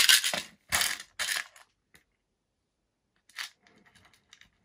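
Small metal screws being handled and clattering on a wooden workbench: three short bursts of clatter in the first second and a half, then a few faint clicks near the end.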